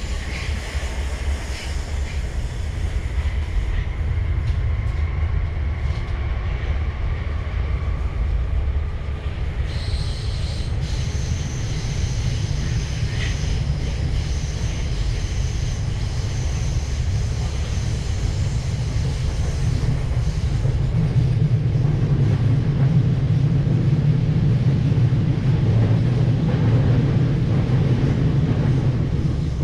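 Electric suburban passenger train running between stations, heard from inside the carriage: a steady low rumble of wheels on track, with a thin high whine for several seconds midway. The rumble grows louder in the last third.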